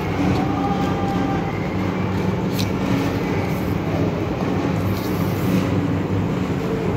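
Steady rumbling background noise with a low, even hum underneath.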